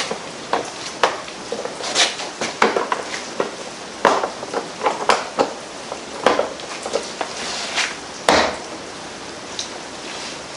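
Irregular clicks, knocks and light rattles of parts and tools being handled on top of a Predator 670 engine during assembly, with the loudest knocks about four and eight seconds in.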